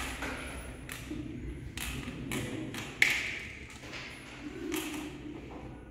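Mangala stones dropped one by one into the pits of a plastic mangala board: a string of light clicks and taps at an irregular pace, with one louder clack about three seconds in.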